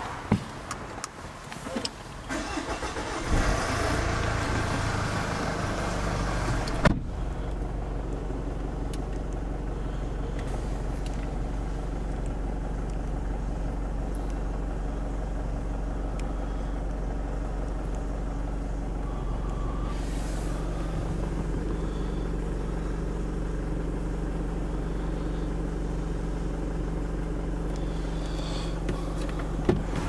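Jaguar XF's engine starting about three seconds in and settling into a steady idle, heard from inside the cabin. A single sharp thump comes about seven seconds in.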